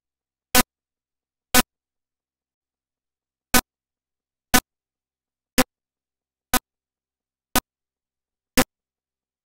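Short percussive hits repeated about once a second, with one beat skipped near the start, against total silence in between: eight hits in all.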